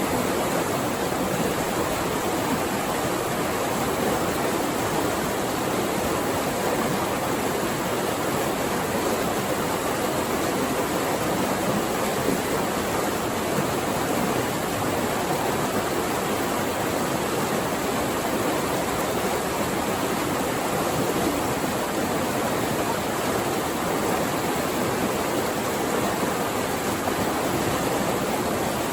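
Flowing water rushing steadily over rocks, an even unbroken rush with no changes.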